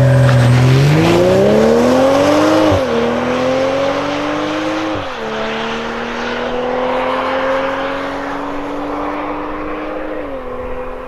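Turbocharged BMW inline-six SUV accelerating hard from a standstill: the engine is held at raised revs for a moment, then pulls through the gears with upshifts about 3 and 5 seconds in and another near the end, growing fainter as it pulls away.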